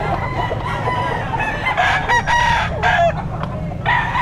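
Several roosters crowing, their calls overlapping one another over a steady background din, with the loudest crows about two seconds in and again near the end.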